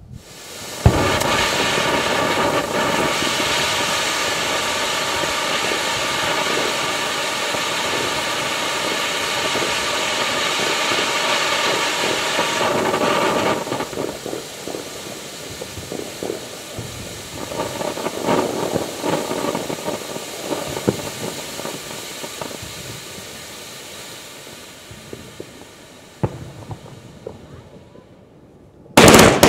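Ground fountain firework burning: it lights with a sharp pop about a second in, gives off a loud, steady hiss for about twelve seconds, then sputters and crackles irregularly as it dies down. A sudden loud bang comes near the end.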